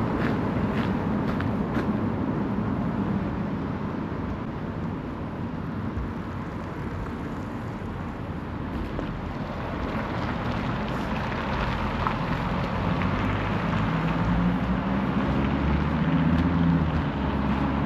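Street traffic with vehicles passing on the road. Past the middle, a vehicle's engine hum grows louder and stays prominent to the end.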